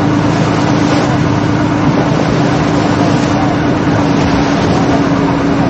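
Small motorboat running steadily at speed: a constant engine drone over the rush of water along the hull, with wind buffeting the microphone.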